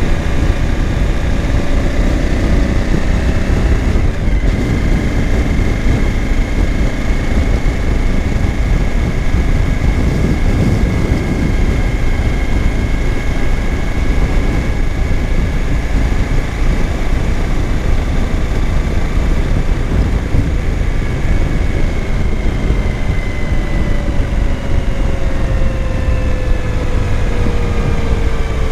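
Motorcycle ride at steady speed: heavy wind rush on the microphone over the Suzuki V-Strom 1000's V-twin engine holding a constant note, which drops a little in pitch near the end.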